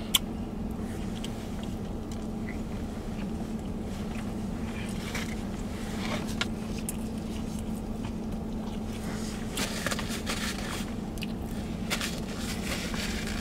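Steady low hum of a vehicle running, heard inside its cabin, with scattered soft clicks of chewing and a paper napkin being handled.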